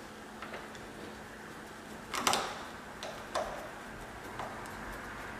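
Light clicks and taps of deadbolt hardware and screws being handled and started by hand, four or so separate clicks with the loudest a little over two seconds in.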